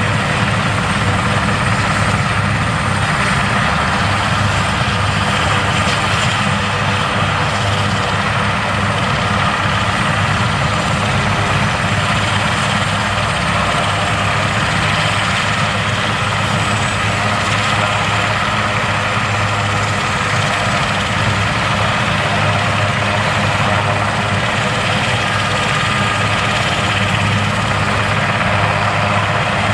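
Super Puma military helicopter's twin turboshaft engines running at ground idle with the rotor turning slowly: a steady low drone under a thin, high turbine whine.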